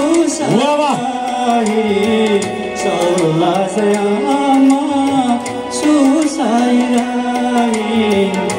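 A man singing live into a handheld microphone through a PA speaker, backed by a Yamaha PSR-S670 arranger keyboard playing chords and a beat. The voice holds long notes and slides between them.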